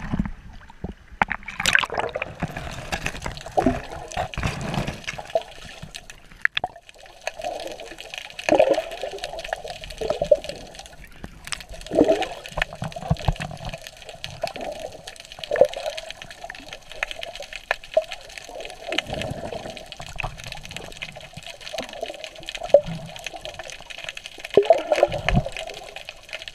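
Water sloshing and gurgling around a swimmer's camera held at and just under the sea surface, in rhythmic surges every second or two with the swim strokes.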